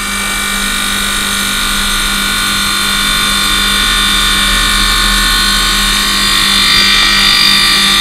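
Compressor motor running steadily, building pressure to push flushing fluid through an air conditioner's capillary tube: a steady whine with a low hum, growing slightly louder.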